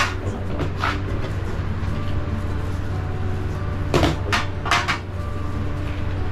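Kitchenware knocking and clinking as chopped vegetables are scraped off a metal tray and tipped from small bowls into a mixing bowl. There is a sharp knock at the start, another about a second in, and three more between about four and five seconds. A steady low hum runs underneath.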